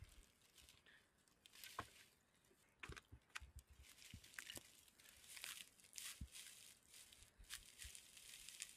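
Near silence with faint, scattered sharp clicks and short rustles, like small handling noises.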